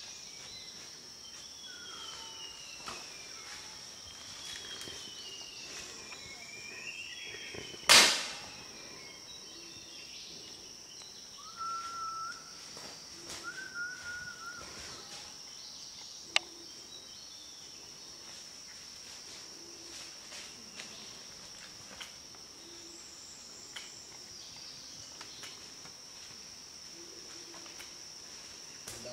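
Forest ambience: a steady high insect drone with falling bird chirps, a single loud sharp bang about eight seconds in, and a few short whistled notes a few seconds later.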